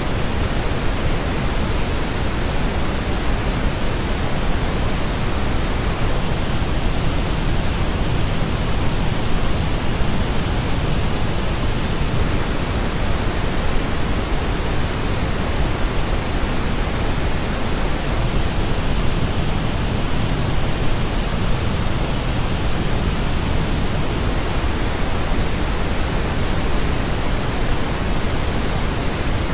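Pink noise test signal: a steady, even hiss that switches about every six seconds between the original reference noise and the same noise reproduced by the Dan Clark Audio Expanse headphones. With each switch the top treble gets brighter or duller.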